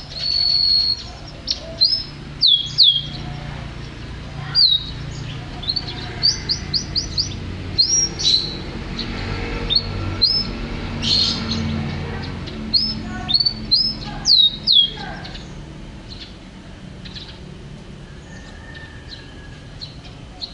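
Domestic canary singing: a string of sharp whistled notes, many sliding quickly down in pitch, some repeated in quick runs. The song stops about three-quarters of the way through, leaving a faint low hum.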